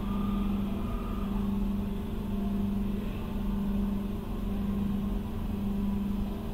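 A machine running with a steady low hum that swells slightly at an even pace.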